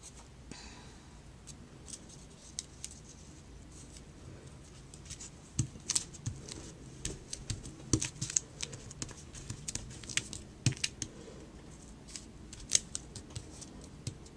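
Hands handling and pressing a thin die-cut paper flourish onto a scrapbook page on a cutting mat: irregular small paper crackles and taps, sparse at first and busier from about five seconds in.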